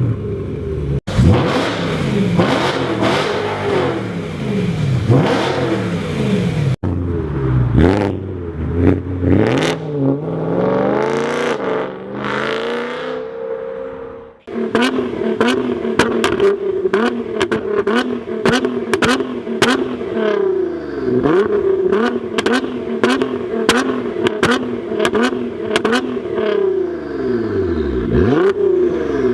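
Performance car engines revved hard in repeated short blips, in several clips one after another. In the second half a steadier, high rev is broken by many sharp exhaust pops and crackles.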